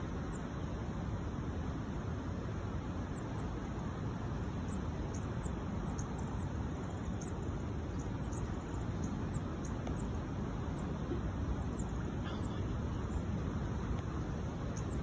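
Steady low rumble of roadside traffic, with many short, high-pitched chips from small birds scattered through it.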